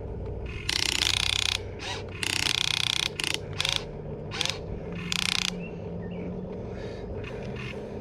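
Huina 1593 RC excavator's geared electric motors whining in short bursts as the arm and bucket move: two longer bursts, then several short ones, then quieter toward the end, over a steady low hum.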